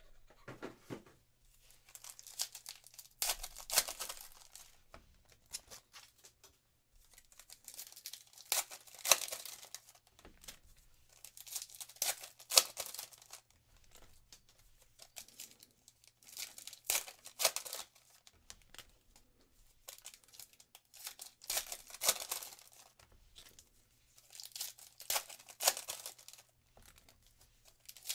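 Foil wrappers of Panini Prizm basketball card packs being torn open one after another and crinkling, in bursts about every four seconds.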